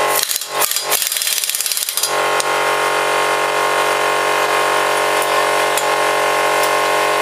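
Pneumatic impact wrench hammering on a car wheel's lug nut in two short bursts during the first two seconds, the second burst longer. A steady hum runs underneath throughout.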